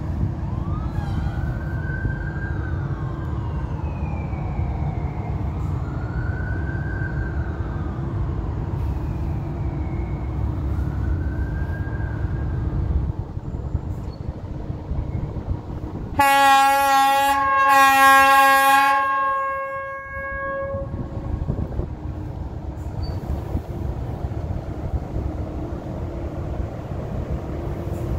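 An old electric locomotive stands with a steady low rumble and hum, and a faint whine rises and falls several times in the first half. About sixteen seconds in, its horn sounds one loud, steady blast lasting about four seconds, the signal as it departs.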